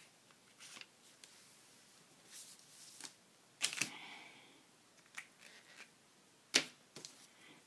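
Scattered sharp clicks and taps of marker pens being handled and set down on a tabletop, as a bronze Sharpie is put aside and a black marker picked up; the two loudest clicks come about a third of the way in and near the end.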